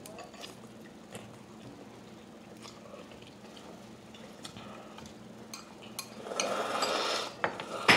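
Chopsticks clicking lightly and irregularly against ceramic bowls during a noodle meal. About six seconds in, a louder breathy rush of noise lasts about a second, and a sharp click follows near the end.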